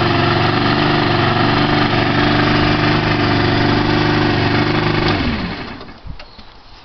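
SYM Mio 50's 49cc four-stroke single-cylinder engine idling steadily, then shut off about five seconds in, its note falling as it runs down and stops within about a second.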